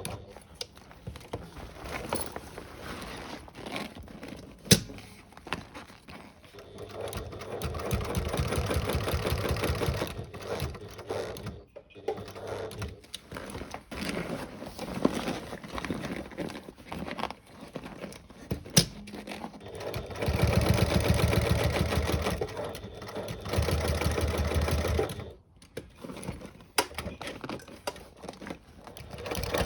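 Sewing machine stitching through a double layer of PVC onto a tent side wall's tie-down. It runs in several bursts of fast, even needle strokes with quieter pauses between them. Two sharp clicks stand out, the loudest about five seconds in.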